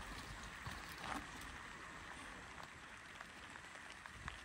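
Faint, steady outdoor hiss with a few light clicks and a soft rustle about a second in.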